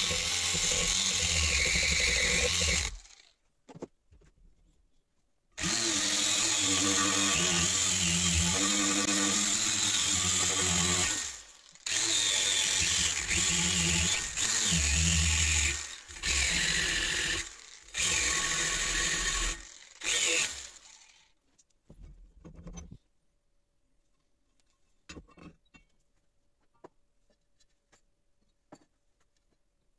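Angle grinder with a wire brush wheel scrubbing rust off a steel spade blade, run in several bursts with short pauses, then switched off about twenty seconds in. A few light clicks follow.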